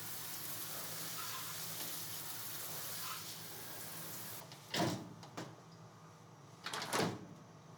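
Steady hiss of a spray washing down the CNC mill's rail covers, which stops about four and a half seconds in. Two short sweeping noises follow, one near five seconds and one near seven.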